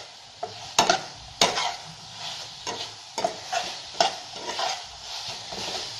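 Vegetables and sauces sizzling in a hot pan on high flame while they are stirred, the utensil knocking and scraping against the pan, sharply twice about a second in and more lightly after.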